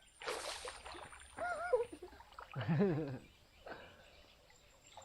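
A brief rushing noise, then people's voices making short wordless exclamations with rising and falling pitch.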